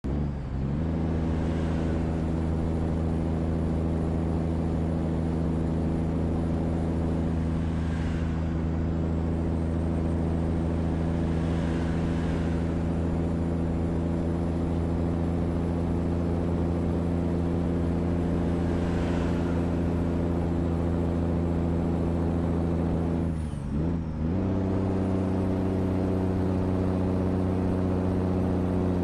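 Scania cab-over truck's diesel engine idling steadily with a deep rumble. A little past two-thirds of the way through, the note briefly dips and then settles at a slightly higher idle. Faint short hisses come and go a few times.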